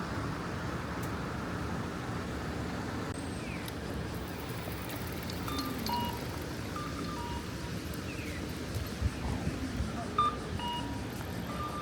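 Town street ambience with a steady background hum, over which short electronic beeps at two alternating pitches repeat through the second half, with a few brief falling chirps. A few sharp knocks come near the end.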